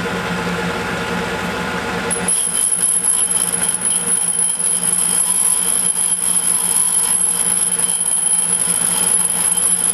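Valve refacing machine running with an intake valve spinning in its chuck, a steady hum. About two seconds in, a steady high-pitched whine joins as the grinding stone takes a light 30-degree back cut on the valve.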